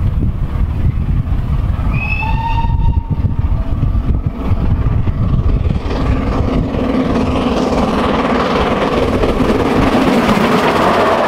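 Steam locomotive GWR Castle-class 4-6-0 No. 7029 'Clun Castle' approaching with its train, over wind buffeting the microphone. A short whistle sounds about two seconds in. From about halfway the exhaust and wheel noise swells and stays loud as the engine passes close by near the end.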